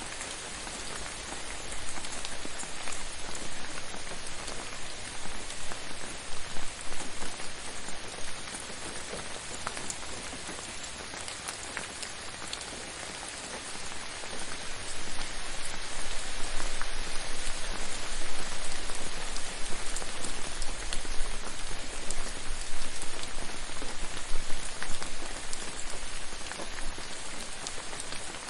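Gentle rain falling steadily, with individual drops ticking through the hiss. It swells louder a couple of seconds in, eases off, and swells again from about halfway.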